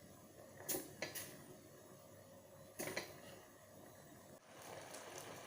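A few faint, light clicks of a utensil against a cooking pot, three in the first three seconds, over a low steady hiss while rice cooks in coconut milk.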